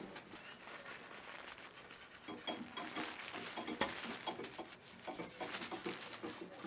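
Soft rustling and scattered light clicks of handling: plastic-gloved hands working a waxed wooden walking stick.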